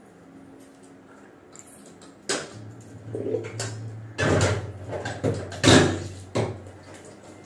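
Kitchen clatter: a run of knocks and rattles from utensils and containers being handled, starting about two seconds in and loudest near the end. A low steady hum lies underneath.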